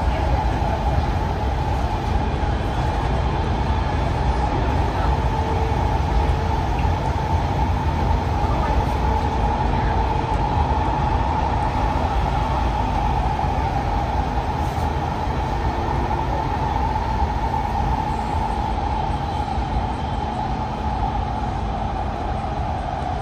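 Metro train in an underground station: a steady low rumble with a droning hum, easing slightly near the end.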